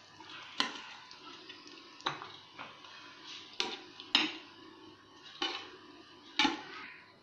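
Metal spoon knocking and scraping against a cooking pan while potato masala is scraped out onto a serving plate: about seven sharp clinks, spaced irregularly.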